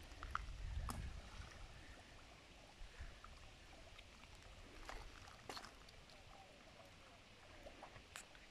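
Very faint outdoor water sounds: a few small scattered splashes or laps of water over a quiet background, with a low rumble in the first second or two.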